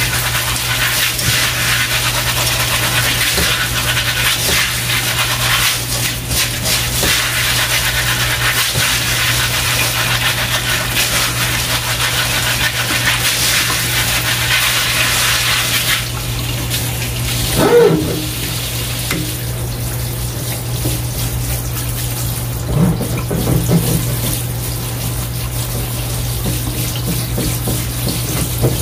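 Cool water from a kitchen faucet running onto dried pinto beans in a metal colander while they are rubbed clean by hand. The water stops about sixteen seconds in, leaving quieter stirring and clinking of the wet beans in the colander.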